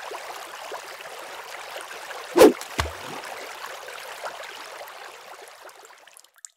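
Sound effect of running, trickling water with one loud sharp splash about two and a half seconds in and a lower thud just after it; the water sound fades out near the end.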